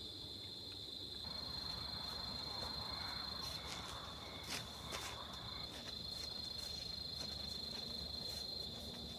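Crickets chirring in a steady, continuous high-pitched trill, with a few sharp clicks around the middle.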